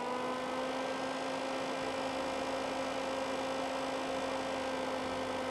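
Auto-sensing solder fume extractor's 12 V fan running at a raised speed with a steady hum, having wound up as its particulate sensor picks up the solder fumes.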